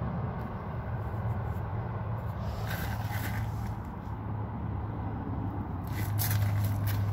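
A steady low mechanical hum, like a motor running, with brief scraping sounds about three seconds in and again near the end.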